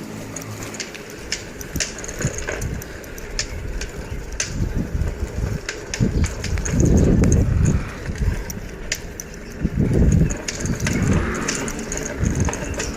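Bicycle riding noise: frequent ticks and rattles, with deep rumbling gusts swelling about six seconds in and again about ten seconds in.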